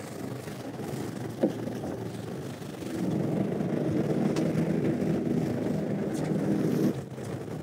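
Fishing boat's engine running under wind and sea noise. A louder low hum comes in about three seconds in and drops away shortly before the end.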